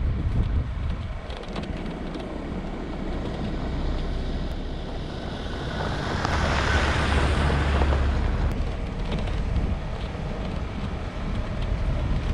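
Off-road vehicle driving along a dirt track, its low rumble overlaid by wind buffeting the microphone, with a louder rush from about six to eight seconds in.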